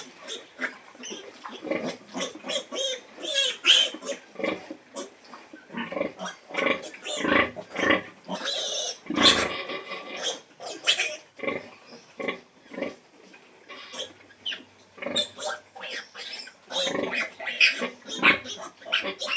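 A sow grunting in many short, repeated calls: the call she uses to bring her piglets to feed.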